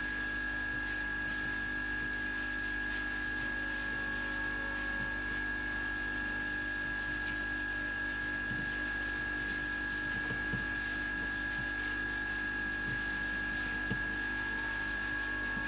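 Hot air rework gun blowing steadily, its fan giving a constant whine with a high steady tone, while it melts solder on a phone mainboard.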